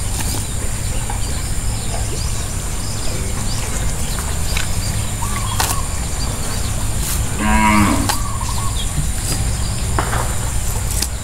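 A cow moos once, briefly, about seven and a half seconds in, over a steady low background rumble.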